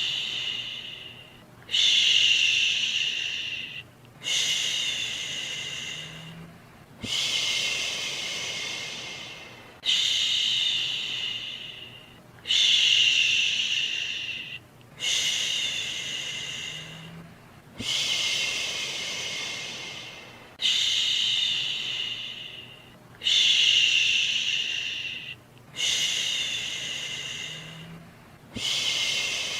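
A person's "shhh" shushing, repeated about every two and a half seconds, each shush starting sharply and fading out over about two seconds, over a quieter steady white-noise hiss. It is a soothing shush for lulling a baby to sleep.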